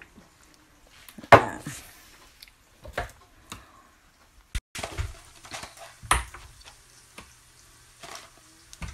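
Scattered knocks and clinks of kitchen things being handled on a counter, the loudest about a second and a half in.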